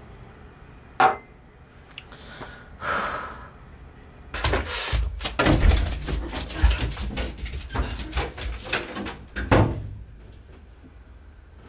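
A sharp knock about a second in, then footsteps and knocking as a door is opened and handled, ending in a loud thump as the door is shut near the end.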